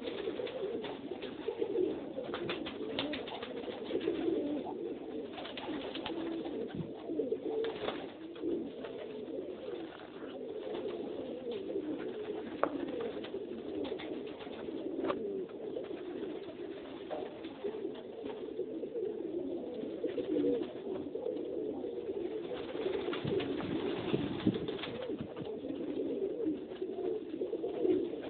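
Domestic pigeons cooing continuously, many overlapping low coos, with a few sharp clicks now and then.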